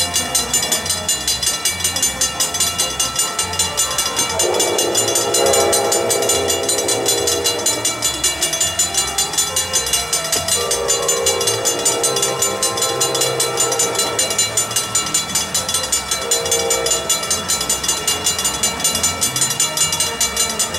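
Grade-crossing warning bells ringing steadily and rapidly while an approaching train sounds its horn: a long blast about four seconds in, a second long blast about ten seconds in, and a short blast near sixteen seconds.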